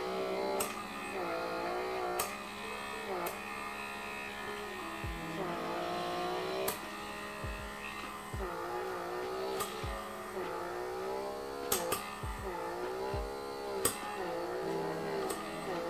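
Background music with a plucked-string melody, over the steady low hum of a handheld vacuum blackhead-removal device running, with a few scattered clicks and thumps.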